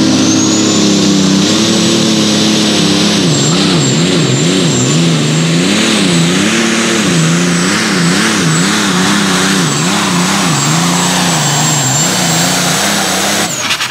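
Light limited super stock pulling tractor's diesel engine at full power under load while pulling the sled, with a steady high turbo whistle above it. Its note wavers up and down about twice a second, and it cuts off sharply near the end.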